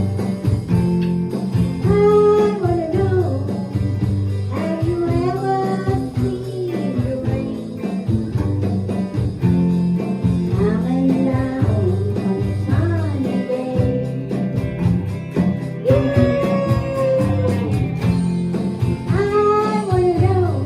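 A song sung with guitar and band accompaniment: a vocal melody over strummed chords and a steady bass line.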